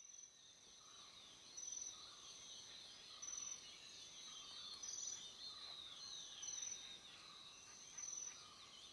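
Faint nature ambience of insect and bird calls: a short high chirp repeats about every one and a half seconds over continuous twittering.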